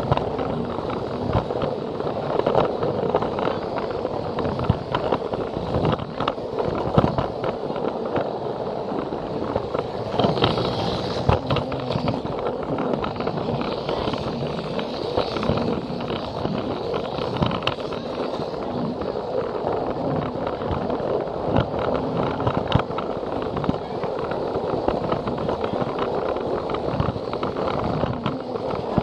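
Plarail toy train running along plastic track: a steady rattle of the small motor and plastic wheels, with frequent short clicks.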